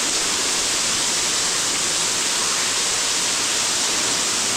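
Underground waterfall pouring down inside a cave: a steady, unbroken rush of falling water.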